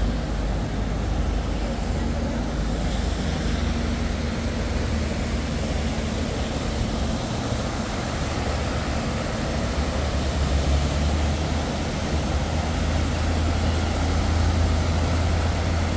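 Steady low rumble of a moving vehicle, with a deeper hum swelling from about ten seconds in.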